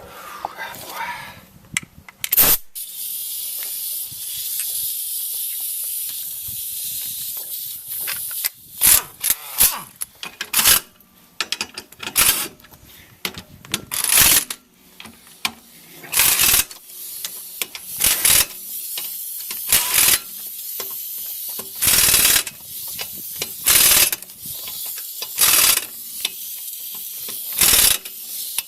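Impact wrench running lug nuts onto a wheel in short bursts, about one every two seconds, after a stretch of steady hiss.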